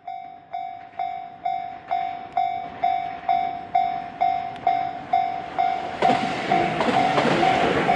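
Japanese level-crossing warning bell clanging about twice a second. About six seconds in, a Tobu Skytree Line train rumbles past the crossing and the bell keeps sounding over it.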